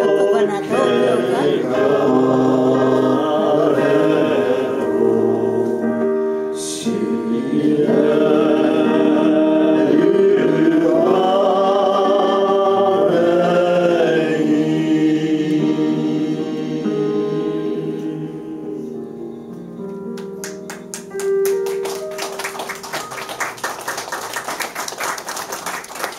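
Small mixed gospel choir singing unaccompanied, several voices in harmony, ending on a held chord about twenty seconds in. Then a small audience claps.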